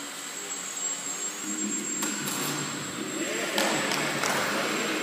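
Electric motors and propellers of small indoor RC model airplanes buzzing in a large echoing sports hall, swelling louder about three and a half seconds in.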